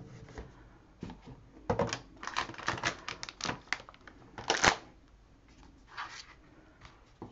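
Sheets of printed scrapbook paper and craft items being handled and set down on a desk: a run of paper rustles and light knocks, the sharpest about four and a half seconds in.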